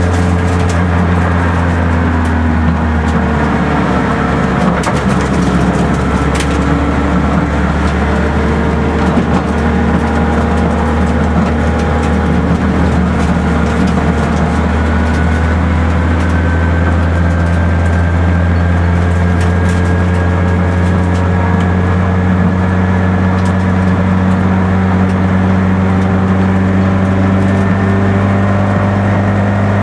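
Peugeot 106 race car's four-cylinder engine running hard under load, heard from inside the stripped, roll-caged cabin. Its pitch dips a few seconds in and then climbs slowly over the second half, with a few sharp clicks now and then.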